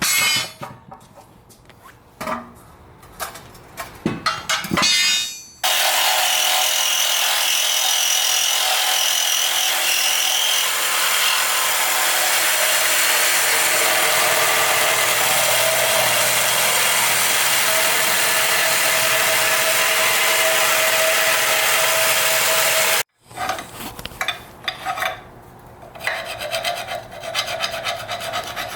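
Welding on steel coilover parts: a loud, steady hiss that starts about six seconds in and cuts off abruptly near the end. It is preceded by scattered metal clinks and knocks and followed by shorter intermittent bursts.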